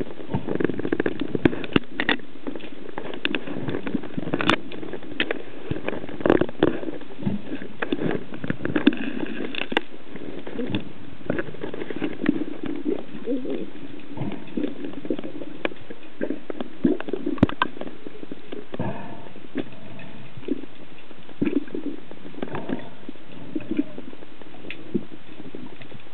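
Underwater sound: a steady muffled rush of water with many scattered sharp clicks and knocks.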